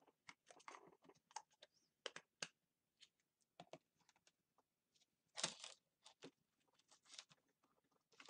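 Plastic Play-Doh tubs being handled and set down on a table: faint scattered clicks and knocks, with a brief scraping rustle about halfway through, the loudest sound.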